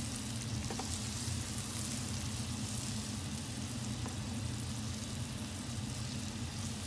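Pink sauce of tomato sauce and cooking cream sizzling in a frying pan as a spatula stirs it, a steady fine crackle. A steady low hum runs underneath.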